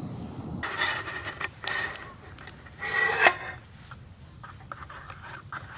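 Making instant coffee in a metal camping mug: the coffee stick scrapes and rubs against the inside of the mug while stirring, in a few short irregular bursts, the strongest about three seconds in.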